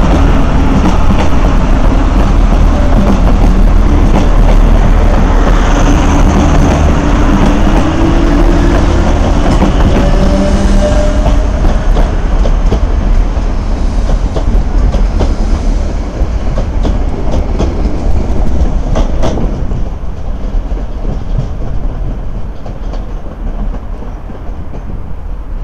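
Six-car DART class 8100 electric multiple unit pulling away close by, its traction motors whining up in pitch as it gathers speed, wheels clacking over the rail joints. The train's noise fades over the last several seconds as it draws away.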